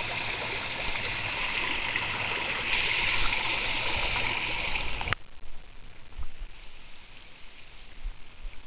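Steady rush of running water splashing into a backyard pool. It grows louder about three seconds in and cuts off suddenly about five seconds in, leaving only a faint outdoor background.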